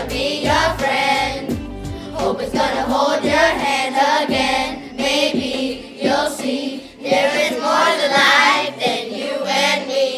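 Pop song with a children's choir singing over a steady beat; about halfway through the beat drops out and the voices carry on.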